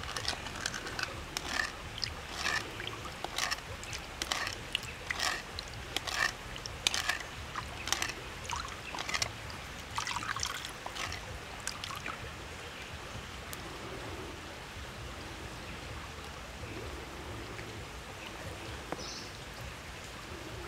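Wooden ladle stirring and scraping in a small bowl of liquid, an irregular run of quick scrapes, knocks and dribbles. After about twelve seconds they stop, leaving only a low steady hiss.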